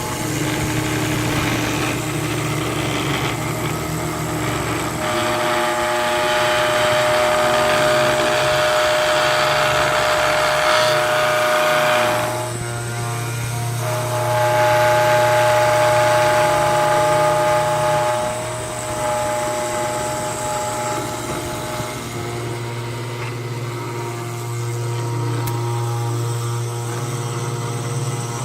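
A CNC machine's motors running: a steady hum, with a high whine that sets in twice for several seconds at a time, louder, with a short break between.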